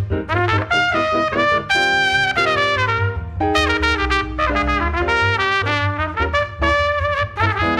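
Jazz trumpet soloing in quick runs of notes with a few longer held notes, over a plucked upright bass walking beneath.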